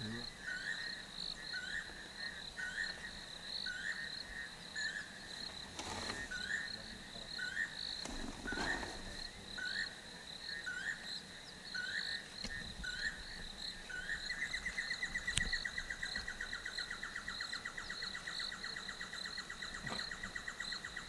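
Bush ambience of insects: a steady high trill throughout, with a short chirping call repeated about once a second. About two-thirds of the way through, a fast pulsing trill joins in and keeps going.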